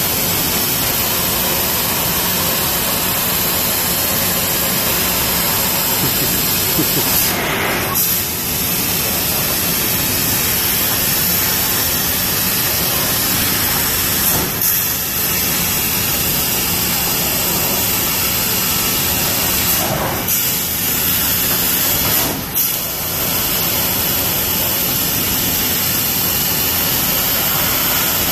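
Industrial laser cutter cutting 2 mm aluminium sheet: a loud, steady hiss of gas and machinery, which briefly changes and dips four times as the cutting head moves between cuts.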